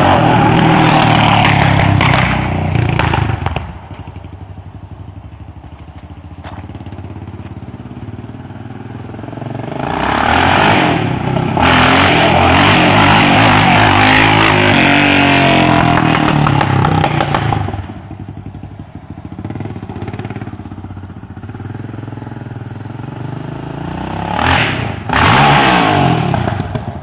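2009 Honda TRX700XX quad's single-cylinder four-stroke engine through a loud DG aftermarket exhaust, revved hard as the quad is ridden past. It is loudest for the first few seconds and again from about ten to seventeen seconds in, with a lower drone between. A short sharp rev comes near the end.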